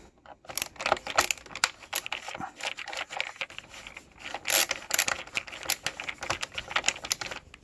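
Hand screwdriver turning out a screw from the plastic brush-roll housing of a Cleartrak/Workhorse upright vacuum: a run of irregular small clicks.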